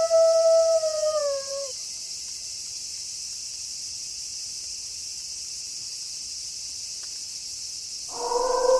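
A wolf howl held on one pitch, sliding down and ending about a second and a half in, then a steady high hiss of night ambience, and a new wolf howl starting near the end.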